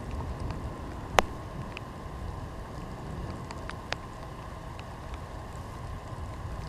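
Wind rumbling on the microphone, with a few sharp, isolated taps; the loudest comes about a second in.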